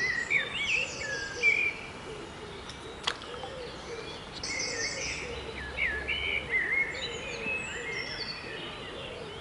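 Several songbirds singing at once, short chirps and whistled phrases overlapping, over a lower sound that keeps repeating underneath. One sharp tick comes about three seconds in.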